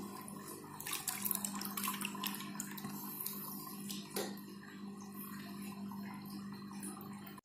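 Pond water trickling and splashing lightly, with small irregular drips, over a steady low hum.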